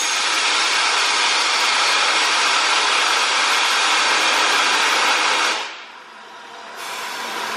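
Flying Scotsman, an LNER A3 Pacific steam locomotive, hissing loudly and steadily as steam blows out at the front by its cylinders. The hiss cuts off about five and a half seconds in and starts again about a second later.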